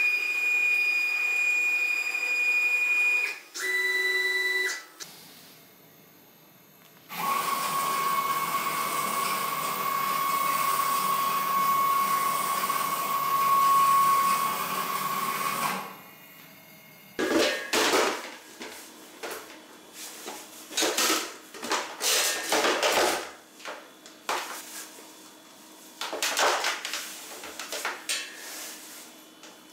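Homemade CNC router's motors running with a steady high whine in three stretches, the pitch lower each time. In the second half come irregular clicks, knocks and rustling as a clear plastic box and hoses are handled.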